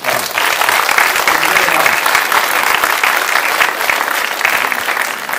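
Audience applauding, a dense patter of clapping that starts abruptly.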